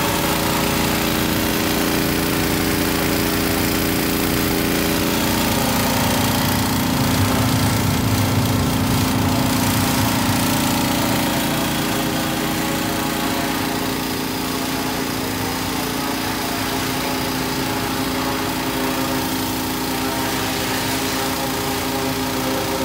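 Small gasoline engine of a Magnum 4000 Series Gold hot-water pressure washer running steadily under load, with a steady hiss of the high-pressure spray over it. The engine gets a little louder for a few seconds about six seconds in.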